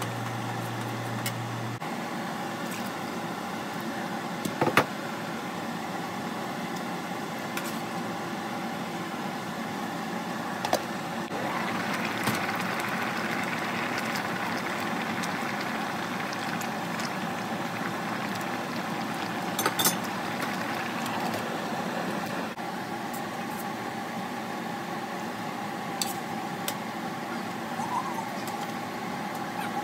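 A steady mechanical hum throughout, with a few sharp clinks of a metal ladle against the pan.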